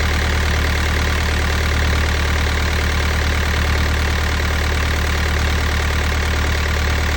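Sailboat's engine, with its Balmar alternator belt drive, running steadily at idle with an even, regular low pulsing.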